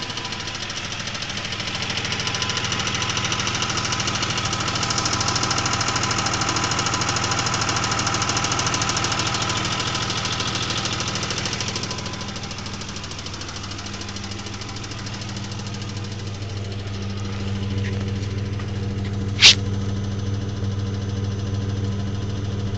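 2000 Isuzu Trooper engine running with a fast, steady ticking that got much louder after a change from 5W-40 to 15W-30 oil; the owner wonders whether it is the crankshaft bearings. About halfway the sound turns lower and duller, and a single sharp click stands out near the end.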